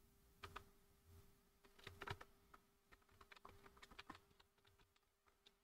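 Faint computer keyboard typing: a couple of key clicks about half a second in, a small cluster near two seconds, and a quicker run of clicks between about three and four seconds. A faint steady hum sits underneath.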